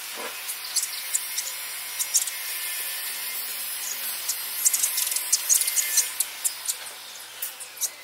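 Sparrows chirping, many short, sharp, high chirps coming thick and fast over a steady hiss, busiest a little past the middle.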